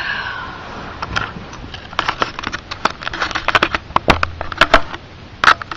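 Handling noise from a hand-held camera being carried about: irregular clicks, knocks and rustles, more frequent and louder in the second half.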